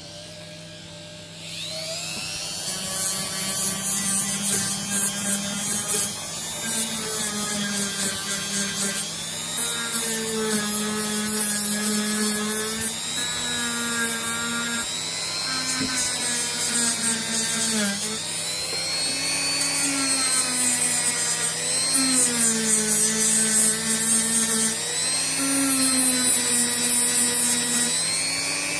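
Rotary tool spinning a steel wire wheel against the tops of 18650 cells, scouring off rust to expose fresh metal for soldering. The motor whine starts about a second and a half in and its pitch dips each time the wheel is pressed onto a cell, with a scratchy hiss of wire on metal.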